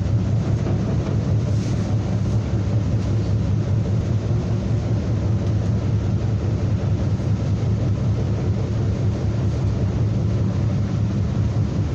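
Moving train noise: a steady rumble with a strong low hum, from a freight train of tank cars and hoppers rolling by.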